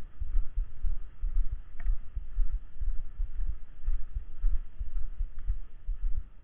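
Wind buffeting the camera microphone, a rumble of irregular low thumps.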